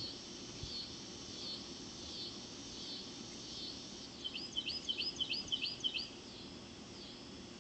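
A songbird singing: short chirps repeated every half second or so, then, about four seconds in, a quick run of about eight louder slurred notes. A steady low background noise runs underneath.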